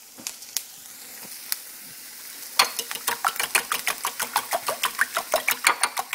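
Raw eggs and milk being beaten briskly with a metal utensil in a ceramic bowl: a few scattered taps, then from about two and a half seconds in a fast, even clatter of about seven clicks a second as the utensil strikes the bowl. Onions and peppers sizzle faintly in a frying pan underneath.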